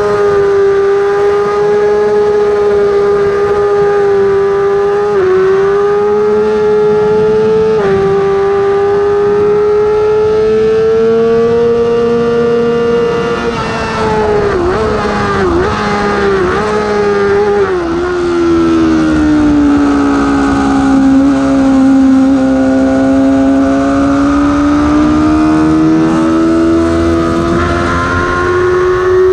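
Yamaha R6's inline-four engine at high revs with wind rush. The pitch climbs through two upshifts with brief dips about five and eight seconds in, then drops in a run of quick downshifts under braking around halfway, holds lower through the corner, and rises again near the end as the bike accelerates out.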